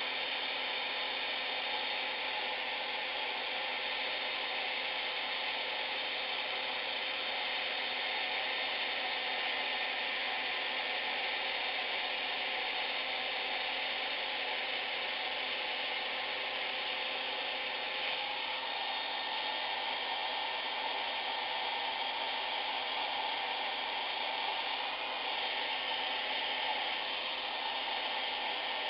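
Hair dryer blowing hot air, a steady rush with a faint motor hum.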